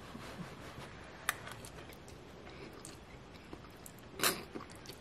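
A single short slurp of hot noodles being sucked into the mouth, about four seconds in, after one faint click about a second in.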